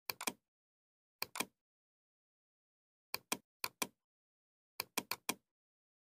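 Computer mouse clicks, mostly quick double-clicks, in five short groups with dead silence between them: folders being opened.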